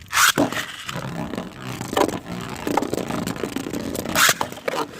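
Beyblades launched with a quick ripcord zip just after the start, then spinning and grinding against each other and the plastic stadium floor with many small clicks. A sharp clash about four seconds in.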